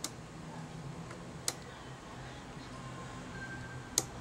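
Three sharp clicks, the first right at the start, one about a second and a half in and the loudest near the end, from the controls of a signal generator as its frequency is switched down toward 1 kHz. A faint steady low hum lies underneath.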